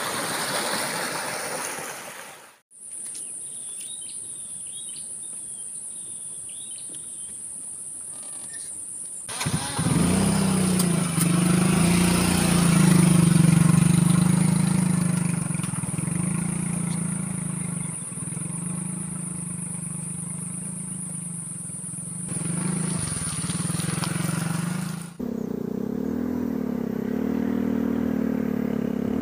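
Small automatic motor scooter's engine running as it rides along a muddy track, its pitch rising and falling, starting about ten seconds in and continuing as it comes through grass near the end. Before that there is a quieter stretch with a few bird chirps over a steady high-pitched drone.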